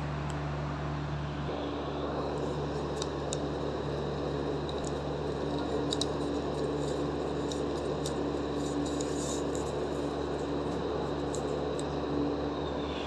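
Newspaper being rolled tightly by hand into a thin tube, the paper rustling with scattered crackles, over a steady background hum.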